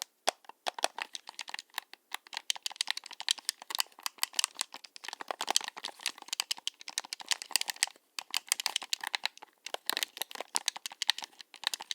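Xbox One controller's buttons and thumbsticks clicking and rattling in rapid, uneven flurries, as when mashing buttons, with brief pauses now and then.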